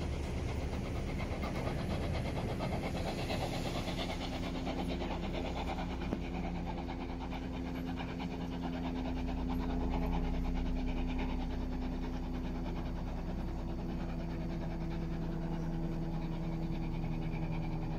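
A steady low mechanical hum with several held tones from a train standing some way down the line, the tones growing clearer about a third of the way in.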